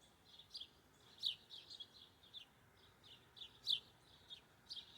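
Small songbirds chirping: many short, quick, high downward chirps at an uneven pace, faint, with two louder ones about a second in and near the end.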